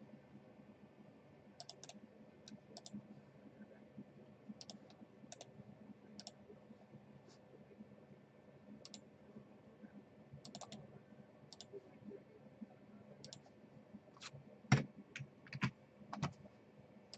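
Faint, scattered clicks of a computer keyboard and mouse, with a quicker run of louder clicks near the end.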